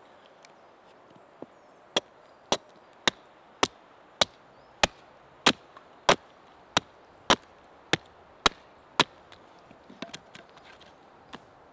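Hatchet chopping along the edge of a wooden board held upright on a stump, hewing a bow drill fireboard down to thickness. The sharp chops come about a dozen times at a little under two a second, followed by a few lighter, uneven knocks near the end.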